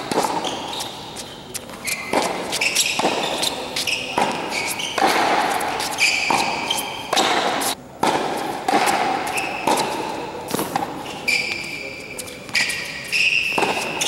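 Tennis rally: a ball struck back and forth by racquets and bouncing on a hard court, sharp hits coming every second or so, in a large indoor hall, with short high squeaks between them.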